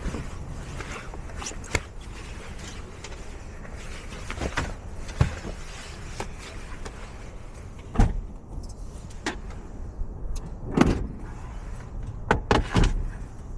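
Irregular knocks and clunks, about a dozen, spaced unevenly over a low steady rumble, the loudest about 8 and 11 seconds in.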